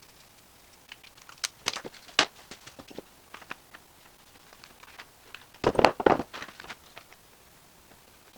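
Scattered sharp clicks and taps of tools and parts being handled, with a louder short clatter of knocks about six seconds in.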